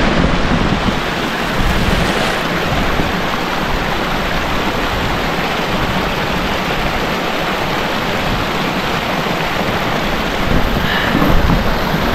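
Small glacial meltwater stream rushing over rocks close to the microphone, a steady loud noise of water fed by melting snow.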